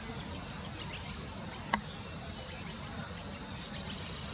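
Quiet outdoor ambience: a steady high-pitched buzz over a low rumble, with one sharp click a little under two seconds in.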